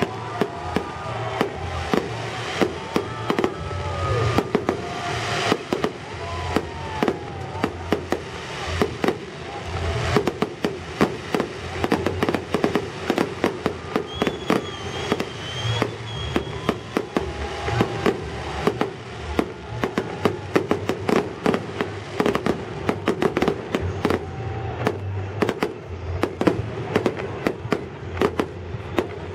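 Fireworks salute going off: a dense, continuous run of bangs and crackles, several a second.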